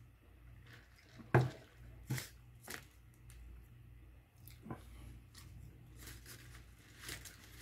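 A person eating close to the microphone: chewing and biting, with a few sharp clicks and knocks, the loudest about a second and a half in, over a low steady hum.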